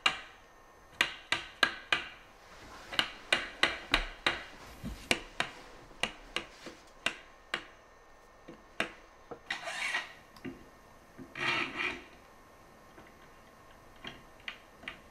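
Mallet taps on a wooden door frame, seating its freshly glued stiles and rails: a quick run of sharp knocks, several a second, for the first eight seconds or so. Then two short scraping rubs, and a few light taps near the end.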